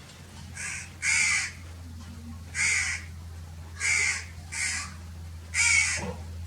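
Crow cawing: six harsh caws at uneven intervals, two of them close together about four and a half seconds in, over a low steady hum.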